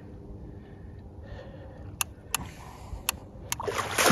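A few sharp clicks over a quiet background, then near the end a loud splash as the hooked European catfish (wels) breaks the surface to gulp air beside the boat.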